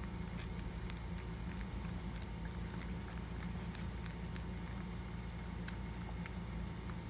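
Maltese mother dog licking her newborn puppy: scattered soft wet clicks and smacks over a steady low hum.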